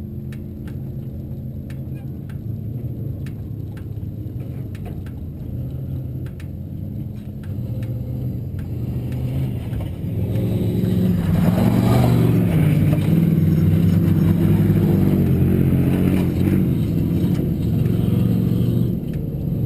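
An off-road race car's engine running steadily, getting louder about ten seconds in and staying loud.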